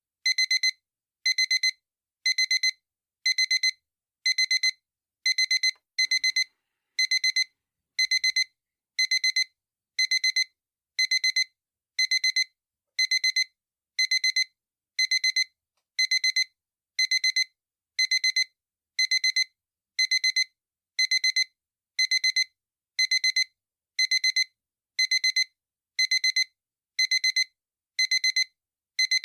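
Digital alarm clock beeping: short, high-pitched electronic beep bursts repeating evenly about once a second, with silence between them.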